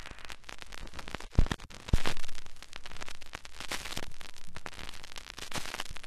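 Crackling static: a steady hiss full of dense clicks, with two louder low pops about one and a half and two seconds in.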